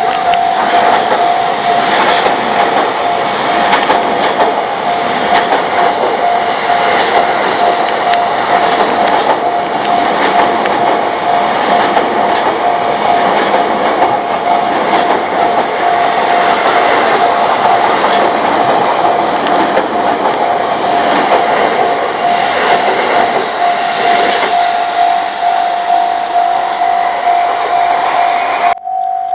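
Japanese level-crossing warning bell ringing on one repeating tone while a JR East train runs through the crossing, its wheels clattering over the rail joints in a dense, steady rumble with many sharp clicks.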